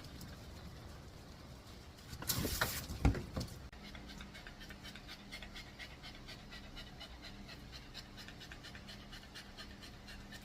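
Dog panting in a fast, even rhythm, with a brief louder rustle about two to three seconds in.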